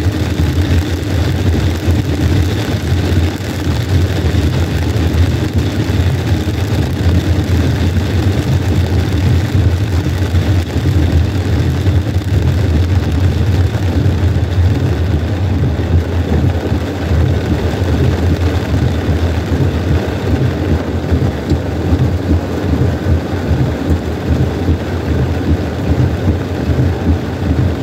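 Steady in-cabin noise of a car driving through heavy rain: a low rumble with an even hiss over it from tyres on the wet road and rain on the car.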